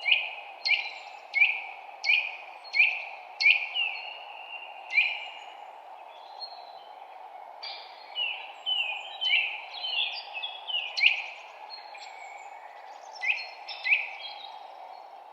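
Songbirds singing: a quick series of sharp, downward-sweeping chirps, about one every 0.7 s in the first four seconds, then more irregular calls from several birds. A steady low hum of distant background noise sits beneath them throughout.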